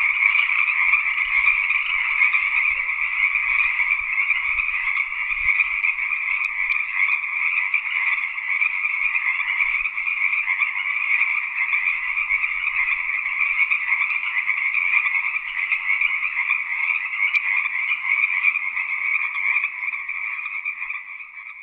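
A dense chorus of many frogs calling at once, a steady massed trilling in two pitch bands, one higher than the other, that fades out at the very end.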